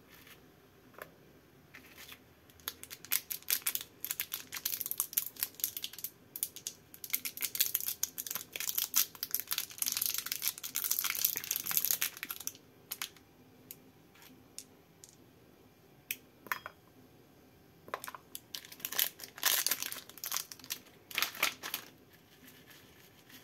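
Clear plastic candy wrapper crinkling as it is twisted and pulled open by hand, in two long stretches of dense crackle with a pause of several seconds between them.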